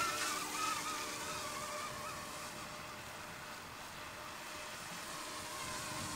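Electric AH-64 Apache scale RC helicopter flying a GPS-automated nose-in circuit, its motor and rotor whine wavering in pitch. The whine fades as the helicopter moves away, then grows louder near the end as it comes back closer.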